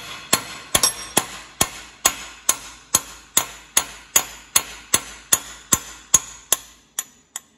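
Hammer blows, about two to three a second, tapping a steel bearing race out of an Allis-Chalmers D17 front wheel hub clamped in a vise. Each strike rings briefly like metal, and the last few are lighter as the race works free.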